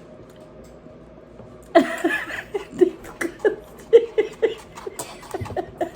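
A person laughing in a string of short bursts, starting about two seconds in after a quiet moment.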